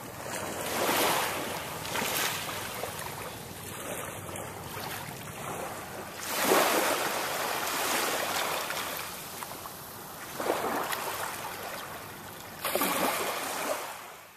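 Small waves washing up a sandy beach, swelling in surges every few seconds and fading out near the end.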